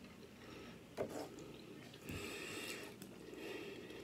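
Quiet eating sounds: a fork clicks once against a plastic takeout container about a second in, then scrapes briefly as it scoops up scrambled egg.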